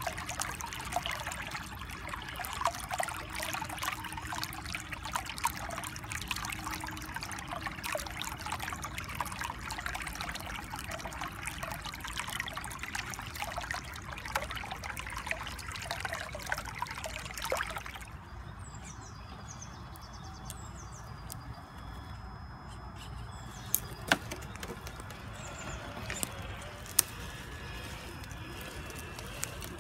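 Shallow stream trickling and babbling over rocks. About eighteen seconds in the water sound cuts out, leaving a quieter background with a few faint bird chirps and several sharp snaps and clicks.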